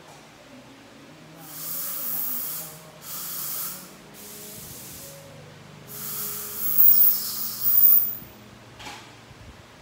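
Dental air-water syringe hissing in four bursts during root canal treatment, the last and loudest lasting about two seconds from roughly six seconds in.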